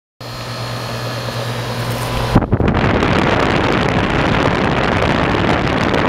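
2003 Carrier outdoor air conditioner condenser unit running with a steady hum. About two seconds in, a loud rush of air takes over as the top fan's discharge blows across the microphone.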